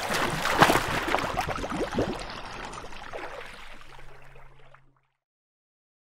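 Water splashing and bubbling, with a few sharper splashes in the first two seconds, then dying away and stopping about five seconds in.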